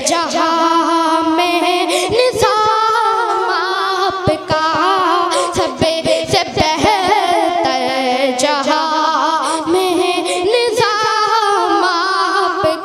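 A boy singing a naat solo and unaccompanied, in long, wavering held notes.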